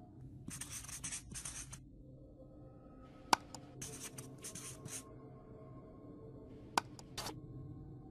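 Marker pen scribbling on a white board in three bursts of quick scratchy strokes, with two sharp clicks between them, over faint soft music.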